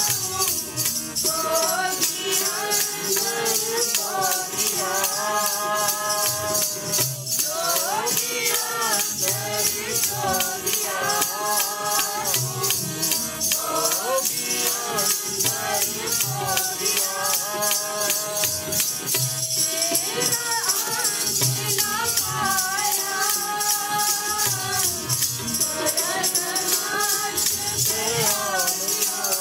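Sikh devotional kirtan: voices singing a hymn over jingling hand percussion that keeps a fast, steady beat.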